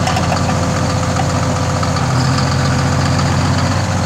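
Log skidder's diesel engine idling steadily, with a faint steady whine over it. The crew take the noise for a failing wheel bearing at the end of the front axle.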